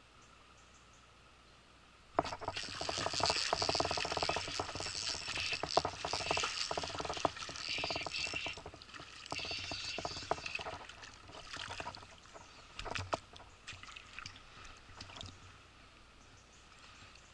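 A hooked European chub splashing and thrashing at the water's surface in a shallow stream while it fights the line. It starts suddenly about two seconds in, is heaviest for the next eight seconds or so, and then dwindles to a few scattered splashes as the fish is brought in.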